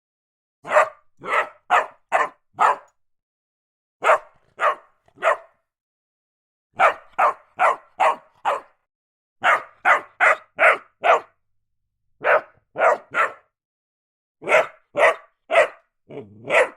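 A dog barking in quick bursts of three to five sharp barks, each burst separated by a second or so of silence.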